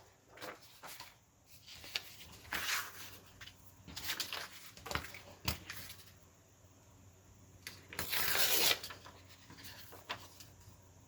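Paper being handled at a craft table: intermittent rustling and sliding of paper with light taps and clicks, and a longer rustle about eight seconds in.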